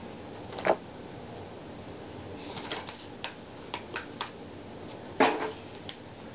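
Trading cards and card packs being handled: a scatter of light clicks and taps, with two louder short rustles, one near the start and one about five seconds in.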